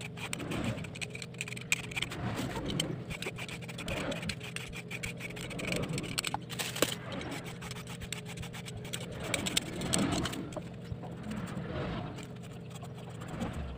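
Hand-held vegetable peeler scraping the skin off purple eggplants in repeated strokes, over a steady low hum.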